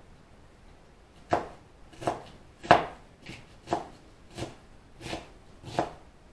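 Knife chopping vegetables, about eight firm strokes at a steady pace of roughly one every 0.7 s, starting a little over a second in.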